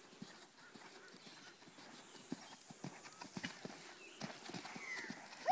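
Hooves of a Welsh Cob pony thudding on sand arena footing as it canters and takes a small rail jump: a run of soft, uneven thumps.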